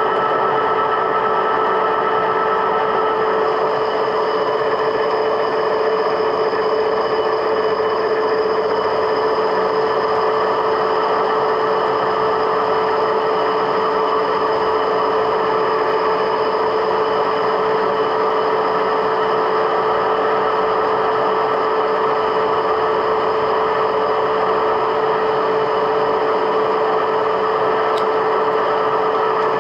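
Metalworking machine tool running steadily: a constant motor and gear whine with one strong steady tone and fainter higher ones, unchanged throughout.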